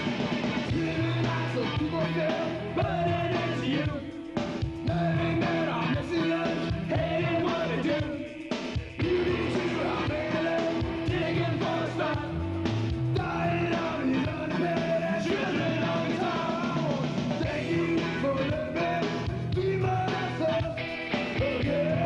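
Rock song with a singing voice.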